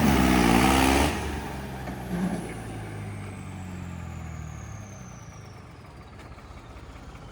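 Tractor diesel engine revving, then cut off about a second in. Its note dies away over the next few seconds while a high whine slides slowly down in pitch and fades.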